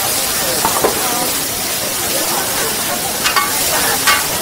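Food frying in hot oil, sizzling with a steady hiss, and a few sharp clicks about three and four seconds in.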